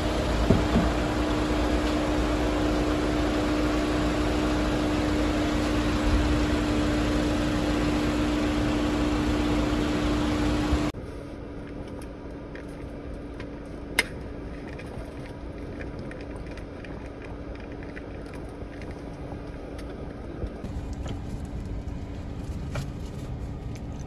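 Steady road and engine noise heard from inside a moving vehicle, with a low hum running through it. About eleven seconds in it drops suddenly to a quieter steady hum, with a single sharp click a few seconds later.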